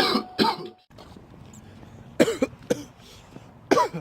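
A person coughing harshly in fits, the cough of someone who has just inhaled cannabis smoke: a burst right at the start, two or three coughs a little past two seconds in, and another cough near the end.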